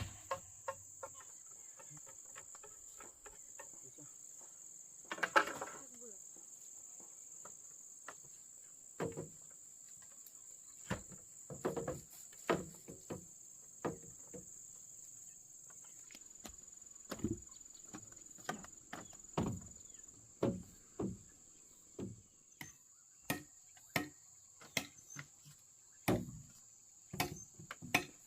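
Insects trilling steadily at a high pitch, with chopping strikes on wood over it: a few scattered blows at first, then about one a second through the second half.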